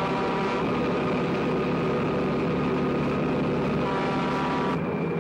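Film sound of a heavy diesel semi truck running loud and close, with its horn sounding twice: at the start and again about four seconds in.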